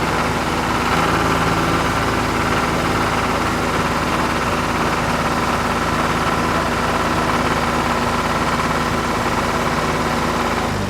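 Cartoon sound effect of a heavy construction vehicle's engine running steadily, an unchanging drone.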